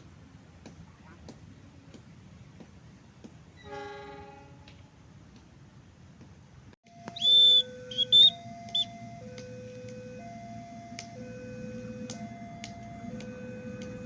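A two-tone electronic warning signal, of the kind used at a railway level crossing, alternates steadily between a lower and a higher tone. As it starts, a shrill whistle is blown three times, and a low rumble builds toward the end. Before that there is quiet ambience with faint clicks and one short horn-like tone.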